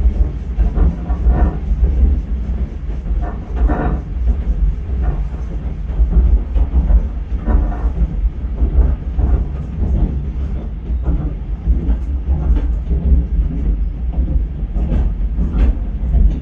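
Chiemsee-Bahn steam tramway train running, heard from inside a passenger car: a steady low rumble with irregular clicks and knocks from the wheels on the rails.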